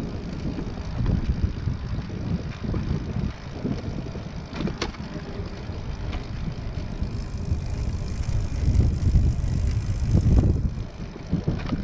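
Wind buffeting the microphone of a recumbent bicycle being ridden, a gusting low rumble, with one sharp click about five seconds in.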